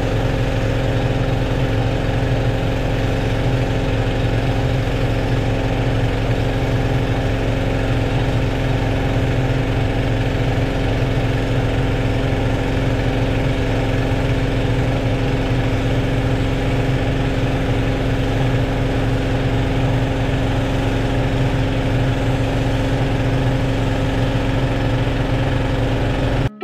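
Pressure washer's engine running steadily at an even pitch while the wand sprays soap onto a combine.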